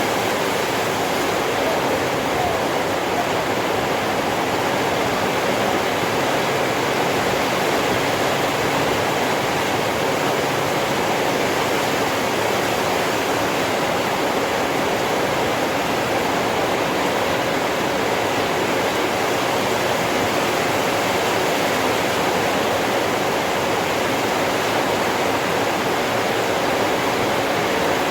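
Heavy rain pouring down steadily, an even, unbroken wash of downpour noise.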